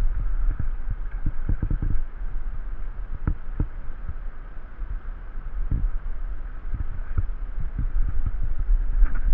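Wind buffeting the microphone: a steady low rumble broken by irregular low thuds.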